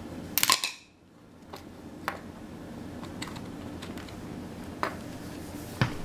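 Small metal clicks and taps as a Zippo lighter's steel insert and its flint spring screw are handled and set down on a stone countertop: a quick cluster of clicks about half a second in, then a few scattered single taps over a steady low hum.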